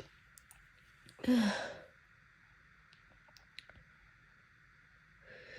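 A woman's loud, breathy sigh-like exhale with a falling voiced pitch, about a second in and lasting well under a second, then a softer breath near the end. These are the heavy breaths of an allergy sneeze build-up.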